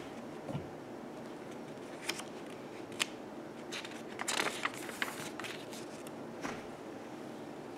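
Paper pages of a large picture book being handled and turned: a few small taps and crinkles, then a short rustling page turn about four to five seconds in.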